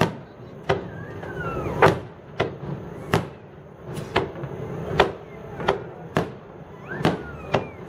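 Fireworks finale: aerial shells bursting in quick succession, about a dozen sharp bangs roughly one every half second to a second, with a few high gliding tones between them.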